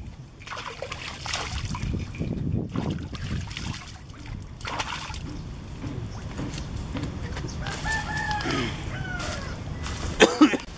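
Water splashing and trickling in bursts as a man scoops it up in his hands to wash his face. A rooster crows about eight seconds in, and a brief sharp knock comes near the end.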